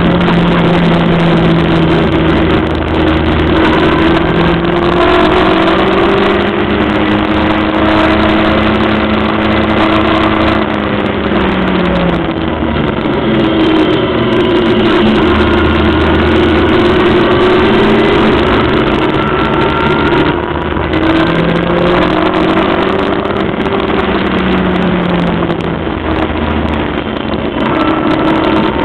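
Onboard sound of a Locost race car's 1300cc engine at full racing load, its note climbing through the revs and dropping back at gear changes or lifts, about 12 s, 20 s and near the end. Loud and continuous.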